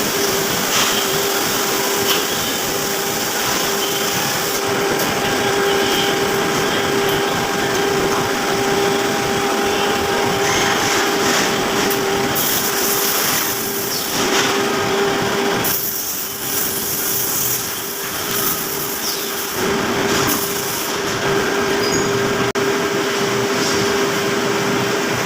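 CNC machine running a cutting job: the spindle holds a steady tone over a dense rushing noise from the cutting, with brief dips in the noise around the middle.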